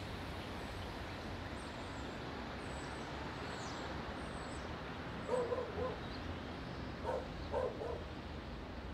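A dog barking in two short bouts, about five seconds in and again a couple of seconds later, over steady outdoor ambience, with a few faint high bird chirps earlier on.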